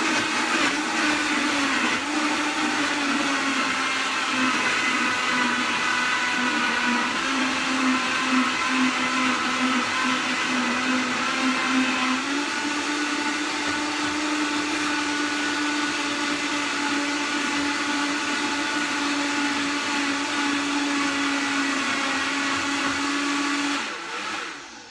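Vitamix blender running at high speed, churning ice and frozen fruit into a smoothie, pretty loud. Its motor pitch steps up about halfway through as the speed is turned up, and it shuts off right at the end.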